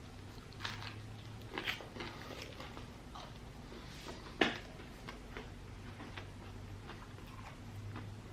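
Close-up chewing of a fried chicken sandwich: scattered wet mouth clicks and smacks, the sharpest about four and a half seconds in, over a faint steady low hum.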